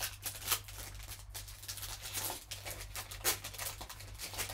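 Silver foil trading-card pack being torn open and handled by gloved hands: a run of irregular crinkles and crackles, over a low steady hum.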